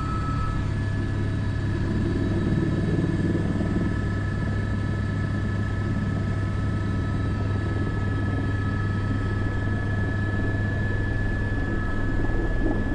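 Airbus AS350 B3 helicopter in flight, its turbine and rotors running at a steady pace: a constant low drone with a thin, steady high whine over it.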